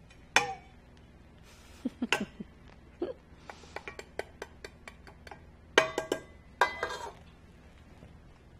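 Small bowls and a utensil clinking and tapping as oil is scraped from a small bowl into a stainless steel stand-mixer bowl: scattered clicks, a quick run of light ticks, then two ringing metal clinks about six and seven seconds in.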